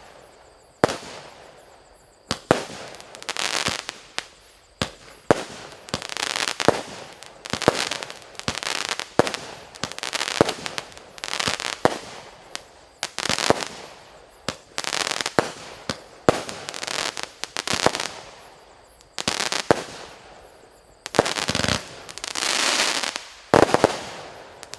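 A 49-shot firework cake firing shot after shot, about one a second. Each shot is a sharp bang followed by a short hiss, with a denser, longer burst of noise near the end.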